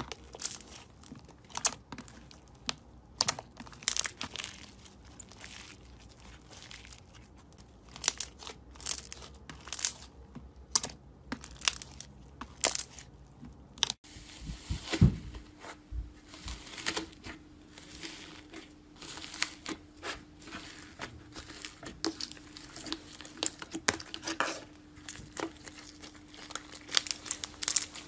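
Slime being stretched, kneaded and pressed by hand, making irregular crackling and popping clicks. The texture changes about halfway through, from a fluffy sprinkle-filled slime being pulled apart to a blue glittered slime pressed with the fingers in its tub.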